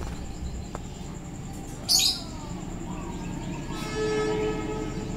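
A train horn sounding once in the distance, a short steady note about four seconds in, over a steady low rumble. A brief shrill high-pitched sound about two seconds in is the loudest moment.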